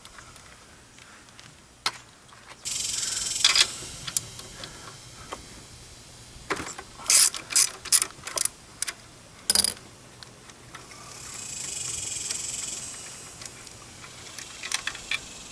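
Ratchet wrench working the spark plug out of a Briggs & Stratton small engine: scattered clicks and a run of about six sharp clicks in the middle, with a short hiss near the start and a hiss that swells and fades later.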